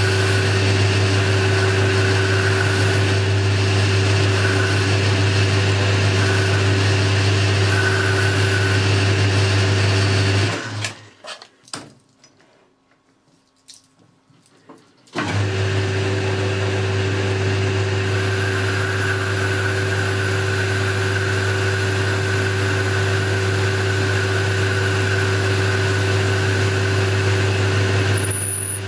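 Boxford lathe running steadily, a constant motor and gearing hum as it turns a small pin. About ten seconds in the sound stops abruptly for about four seconds, then the lathe is running again at the same pitch.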